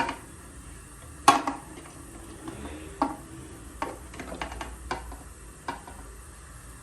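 Metal kitchen utensils knocking and clinking against cookware: one sharp clack about a second and a half in, then a scattered run of lighter clinks.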